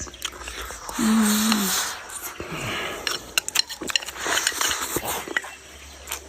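Someone eating with chopsticks from a bowl: sharp clicks of chopsticks on dishes and noisy chewing and slurping, with a short hummed "mm" about a second in.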